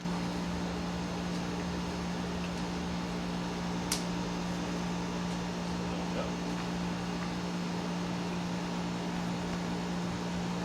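Steady low mechanical hum with a constant low tone, unchanging throughout, and a single sharp click about four seconds in.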